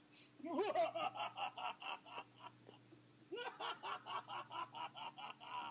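Laughter: two bouts of quick, repeated pulsed syllables, about five a second, the first starting about half a second in and the second about three seconds in.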